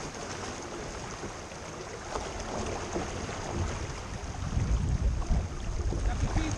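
Wind buffeting the microphone and water rushing past the hull of a small racing sailboat under way. The wind gusts grow louder about four and a half seconds in.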